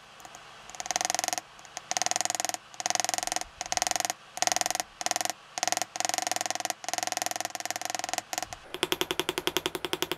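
A small chisel driven by a power engraving hammer handpiece, chattering rapidly into a metal plate as it cuts a shallow channel. It runs in short bursts of fast strokes with brief pauses, and near the end it slows to distinct strokes about eight or nine a second.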